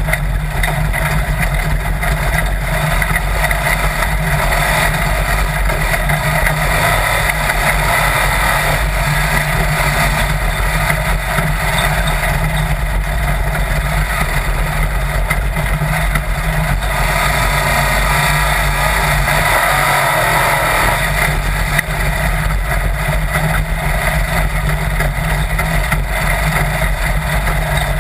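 Sand rail dune buggy's engine running steadily as it drives across the sand, mixed with heavy wind rush over the camera microphone.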